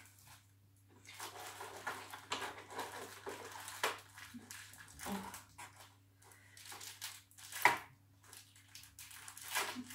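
Plastic packaging rustling and light clicks and knocks as food is handled around a plastic container, with one sharp click about three-quarters of the way through.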